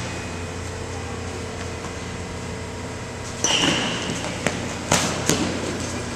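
Steady low hum of ventilation in a large metal-walled indoor hall. About halfway through comes a short noisy burst, then three or four sharp knocks over the next second or so.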